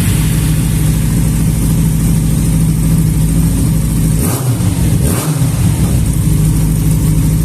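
Yamaha XJ6 inline-four motorcycle engine idling steadily, with two brief blips of the throttle about four and five seconds in. The idle is settled now that a punctured throttle-body vacuum hose that let in false air and held the idle too high has been replaced.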